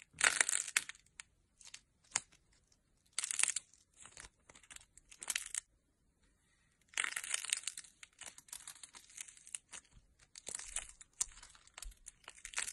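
Cake-pop-shaped slime with sprinkles, squeezed and pressed between fingers and long nails, giving irregular bursts of crackling and crinkling, with a longer crackling stretch a little past halfway.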